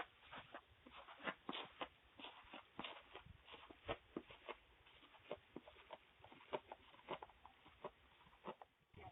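Faint, irregular clicks and taps, about three a second, picked up by a doorbell camera's microphone.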